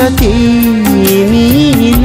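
Background song with long, sliding held notes over a steady beat of about four strokes a second.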